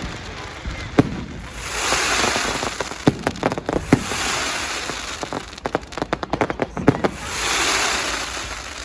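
Fireworks display: a string of sharp bangs and cracks, with long swells of hissing crackle rising and fading between them.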